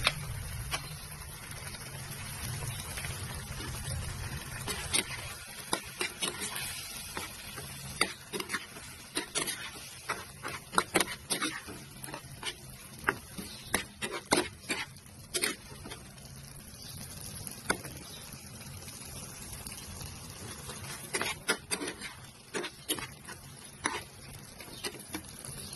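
Food frying in a pan with a steady sizzle, while a cooking utensil stirs and knocks against the pan in irregular sharp clicks.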